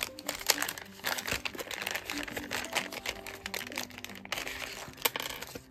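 Plastic packaging crinkling and rustling as hands open and handle a zip-lock bag, with scattered sharp crackles.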